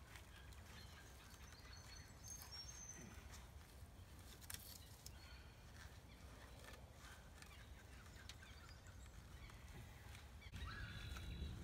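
Near silence: faint outdoor ambience with a few small scattered clicks and faint high chirps, one about two and a half seconds in and another near the end.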